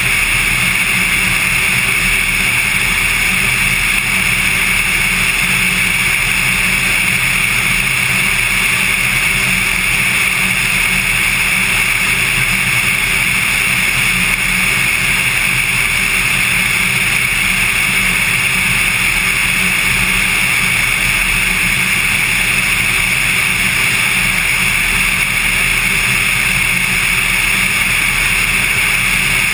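Cessna 182's six-cylinder piston engine and propeller droning steadily in level cruise flight, heard from on board the aircraft; loud and unchanging throughout.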